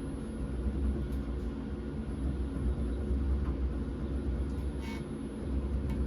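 Lehigh MR-3040 alloy-wheel CNC lathe running a trial pass: a steady low machine hum with a few even tones above it as the wheel is turned along its profile, before any cutting.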